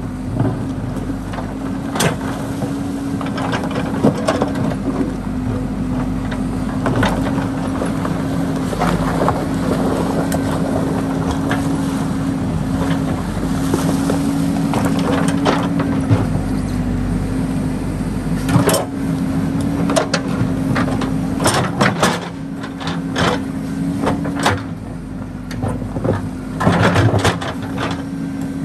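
JCB backhoe loader's diesel engine running steadily while the backhoe bucket digs in a rocky riverbed, with irregular knocks and scrapes of stone against the steel bucket, more frequent in the second half, and water pouring off the lifted bucket.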